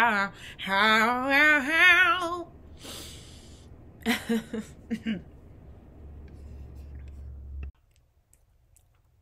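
A woman singing a slow held note with heavy, wavering vibrato that ends about two and a half seconds in, followed by an exhaled breath and a few short soft vocal sounds, then near silence.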